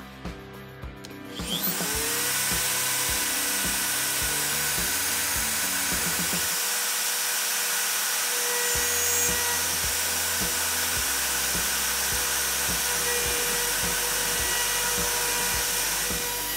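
CNC router spindle spinning up with a rising whine about a second and a half in, then running at a steady high pitch as a 60-degree V-bit starts engraving plywood. Background music plays underneath.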